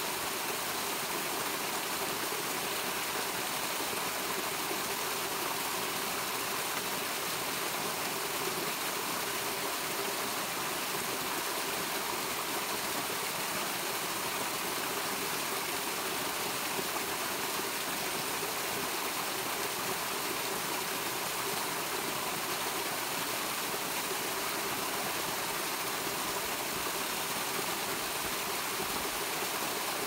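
Small waterfall spilling down a rock ledge into a pool: a steady, even rush of falling water.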